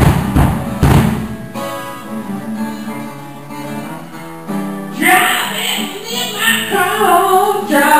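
Live acoustic guitar strumming with a drum kit: sharp hits in the first second and a half, then ringing chords. A man starts singing about five seconds in.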